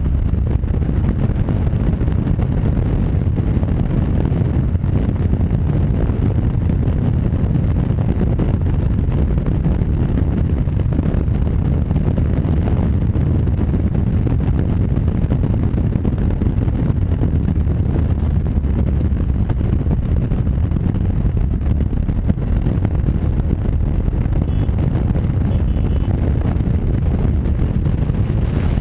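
Honda Varadero V-twin motorcycle ridden at a steady cruising speed: a steady low engine rumble mixed with wind rushing over the bike-mounted microphone.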